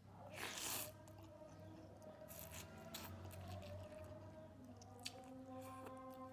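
Close-up eating sounds of bakso meatball soup with rice vermicelli: a short slurp about half a second in, then soft chewing and small mouth clicks, over faint background music with held notes.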